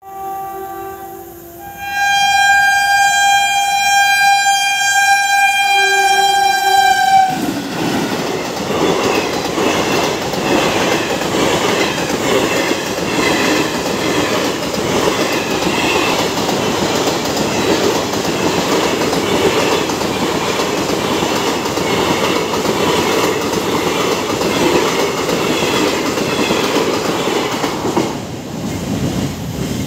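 Train horn blowing a short blast and then a long one of about five seconds. The passenger train then rushes past for about twenty seconds, its wheels clacking over the rail joints, and the noise drops away near the end.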